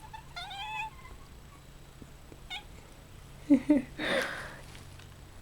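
Pet cat giving a short, wavering, peeping meow, the reaction these cats have each time they hear a sneeze. About three and a half seconds in come two short low sounds and a breathy burst.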